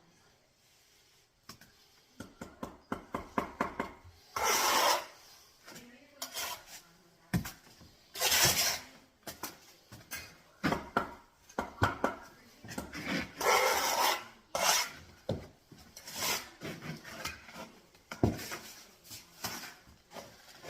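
A steel mason's trowel scraping mortar and clinking against blocks and brick, with many short taps and knocks and several longer scrapes.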